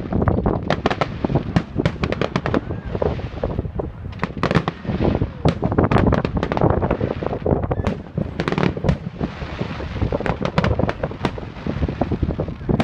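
Fireworks display: a dense, continuous run of cracks and bangs, many in quick succession, over a low rumble, with wind on the microphone.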